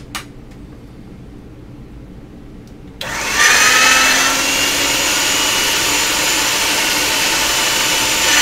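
A small electric motor starts abruptly about three seconds in and runs steadily with a whine, after a couple of light clicks.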